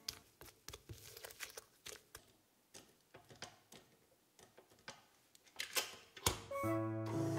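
Scattered light clicks and taps, with two louder knocks about six seconds in. Background music starts again near the end.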